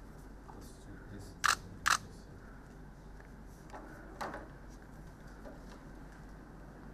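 Two sharp camera shutter clicks in quick succession about a second and a half in, then a few fainter clicks and rustles, over a low steady room hum.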